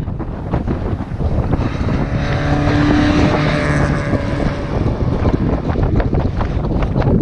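A race car's engine climbing the hill at full throttle, growing louder for a couple of seconds and then fading as it passes, with strong wind buffeting the microphone throughout.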